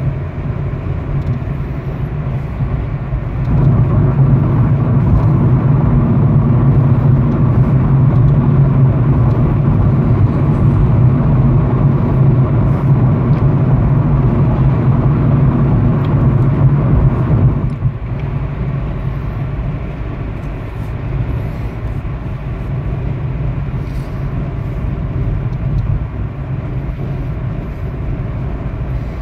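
Road and engine noise heard inside a Honda Civic's cabin while cruising on a highway at about 50 mph, a steady low rumble. It grows louder a few seconds in, then drops back suddenly about two-thirds of the way through.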